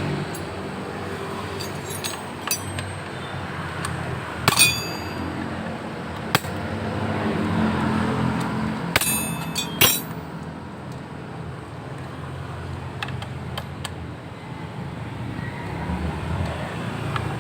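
Low vehicle rumble with several sharp metallic clinks that ring briefly, metal tools or parts knocking together: one about four and a half seconds in, one about six and a half seconds in, and two close together at about nine to ten seconds.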